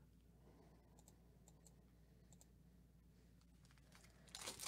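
Near silence with a few faint small ticks, then about four seconds in a short crinkle of the foil wrapper on a baseball card pack being handled as it is torn open.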